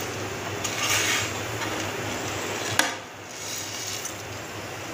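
Metal spoon stirring pasta in a steel pot of water, scraping and clinking against the pot, with one sharp clink nearly three seconds in.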